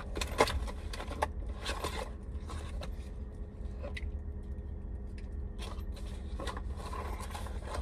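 Rustling, clicks and light scrapes of store purchases (a paper bag and small metal brackets) being handled inside a vehicle cabin, over a steady low hum.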